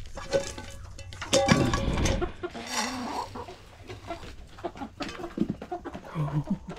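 Chickens clucking in short, scattered calls, with a louder burst of noise about a second and a half in.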